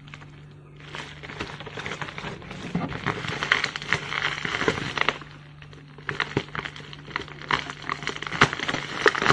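Plastic bubble wrap crinkling and crackling as hands pick and pull at a tightly wrapped parcel, in two stretches with a short lull about halfway. A steady low hum runs underneath.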